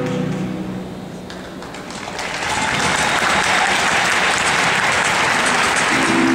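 Audience applauding, building up about two seconds in as the flamenco guitar music fades out; the music comes back in near the end.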